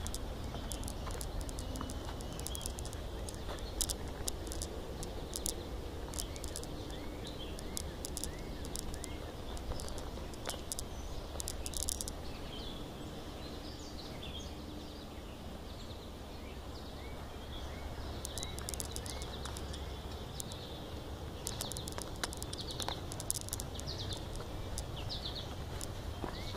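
Small birds chirping repeatedly in woodland, with clusters of scuffing footsteps on a dirt trail over a low steady rumble.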